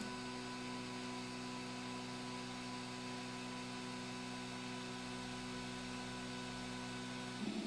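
Steady low hum over a faint hiss from a powered-up Prusa i3 3D printer with its cooling fans running.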